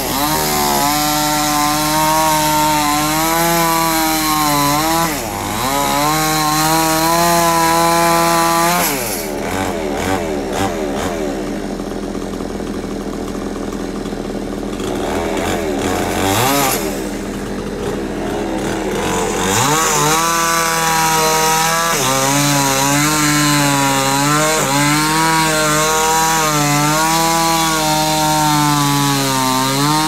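A chainsaw running hard, its pitch wavering up and down as it revs and cuts, in two long spells with a lower steady engine sound between them for about ten seconds in the middle.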